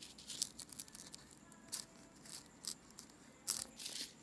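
Marker pen scratching on paper: several brief, scratchy strokes as a symbol is drawn.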